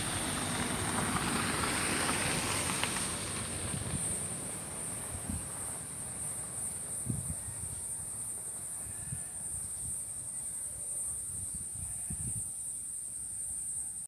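A car driving away on a dirt road, its engine and tyre noise fading over the first few seconds, under a steady high-pitched whine that carries on throughout. A few low thumps come later.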